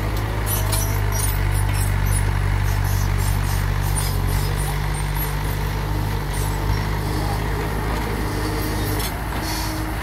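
Small crawler bulldozer's diesel engine running steadily as the dozer pushes a load of broken rock and soil, with scattered clinks and rattles.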